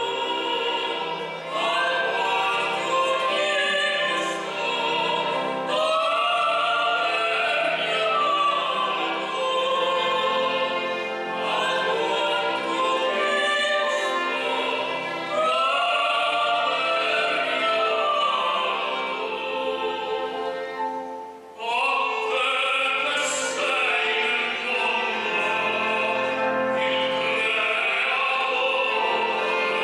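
Soprano and tenor singing an Italian Christmas carol in operatic style with vibrato, accompanied by violin and piano. The music breaks off briefly about two-thirds of the way through, and near the end the tenor sings alone.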